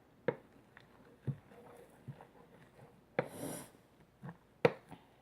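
Sticky slime being worked with a coloured pencil: a few sharp clicks and taps, with a short wet rustle about three seconds in.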